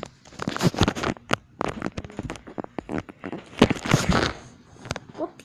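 Rustling, clicks and knocks of a phone being handled and swung around while the person holding it moves, loudest in two clusters, one about a second in and another about four seconds in.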